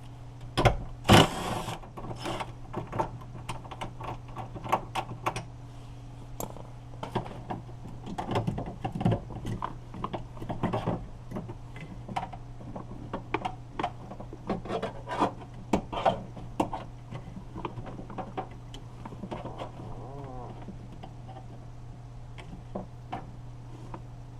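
Irregular clicks, knocks and rattles of hand tools and parts being worked inside a car's front door with the trim panel off. The loudest is a short, sharp rasping burst about a second in. A steady low hum runs underneath.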